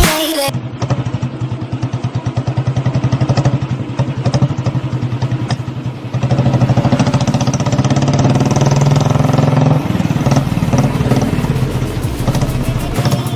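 A motor vehicle's engine running, a steady pulsing drone that gets louder about six seconds in.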